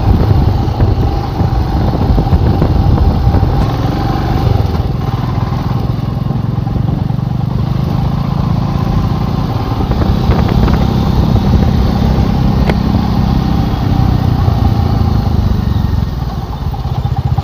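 Royal Enfield Himalayan's single-cylinder engine running steadily while riding, heard close from the bike, with a short ease-off near the end.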